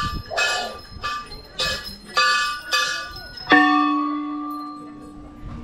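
Hindu temple bells ringing. A small bell is struck about twice a second for about three seconds, then a larger, deeper bell is struck once and rings out, fading away over about two seconds.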